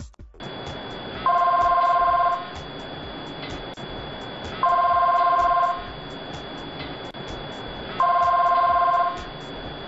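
Windows Mobile phone ringing for an incoming call: three trilling two-tone rings, each about a second long and spaced about three seconds apart, over a steady hiss.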